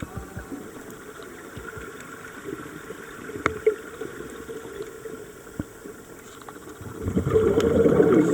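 Underwater recording through a camera housing: a muffled low water hiss with scattered faint clicks, then, about seven seconds in, a louder bubbling rush of a scuba diver's exhaled regulator bubbles.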